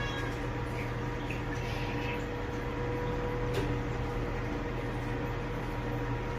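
65-litre automatic pet hair dryer box running mid-cycle: a steady blower hum with a constant whir. A single light click comes about three and a half seconds in.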